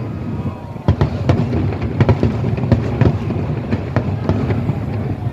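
Aerial fireworks going off: a rapid run of sharp bangs and cracks, one or two a second, over a continuous low rumble of echoing booms.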